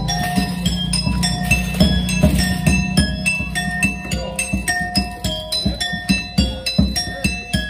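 Music: a bell-like melody of short chiming notes over a steady beat.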